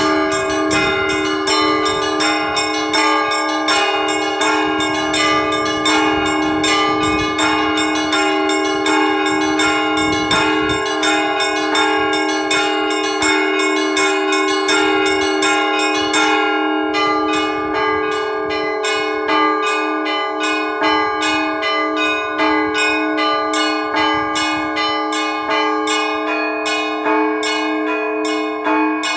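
Orthodox-style church bell ringing by one bell-ringer: a fast, steady run of clapper strikes on several small bells over the sustained ringing of the larger bells.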